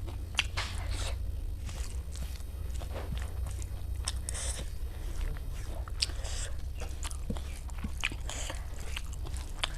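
Close-up chewing and biting of food, with irregular crunches and mouth clicks several times a second, over a steady low hum.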